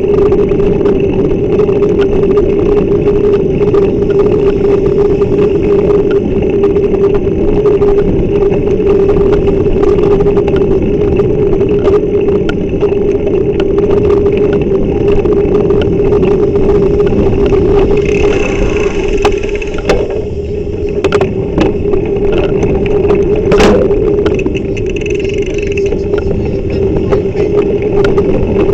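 Steady wind and road noise from riding a bicycle, picked up by the bike's camera, with a constant low hum under it. A higher whine comes in twice in the latter part, and there is a single sharp click about two-thirds of the way through.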